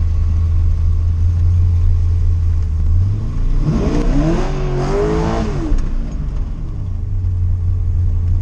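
A 1979 Corvette's V8 idling with a steady low hum, heard from inside the cabin. About three seconds in it is revved once, rising in pitch, holding and falling back over about two and a half seconds, then it settles back to idle.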